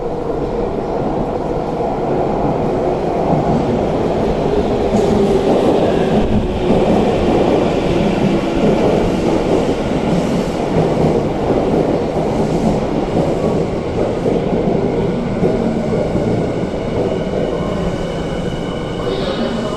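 Electric subway commuter train running into an underground platform, with a steady rumble of wheels and motors that is loudest midway and eases off later. A faint high whine joins near the end.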